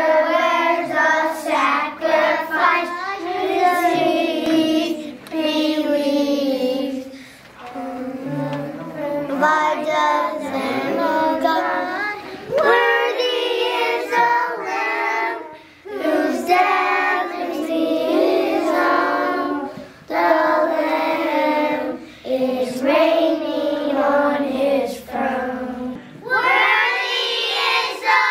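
Kindergarten children's choir singing together, the young voices going in phrases of a few seconds with short breaks between them.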